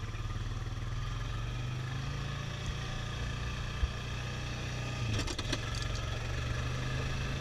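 Quad (ATV) engine running steadily as it drives along, with a single thump a little past the middle and a brief clatter of rattles soon after.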